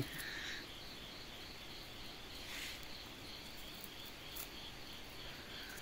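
Crickets chirping steadily and faintly in the background, a continuous pulsing trill.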